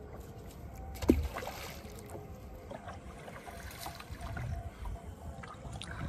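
Wooden rowboat being rowed with a long oar while a fishing net is paid out over the side: water splashing and lapping with small knocks of the oar and net, and one sharper knock about a second in. A low rumble of wind runs underneath.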